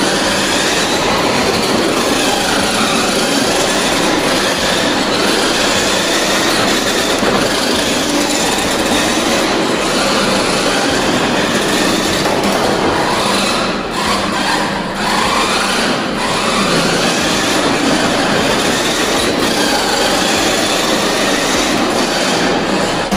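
Toy-grade RC rally car driving: its small electric motor and gear drive whine, rising and falling in pitch as the throttle is worked, over a steady harsh rattle of gears and tyres on a tile floor.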